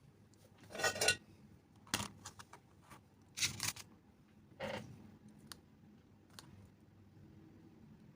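Small tools being handled on a work surface: four short scraping, rustling sounds about a second apart, with a few light ticks between them.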